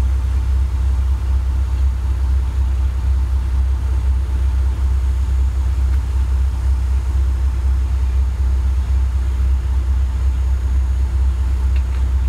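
Military truck's diesel engine running steadily, a deep even rumble heard from inside the cab.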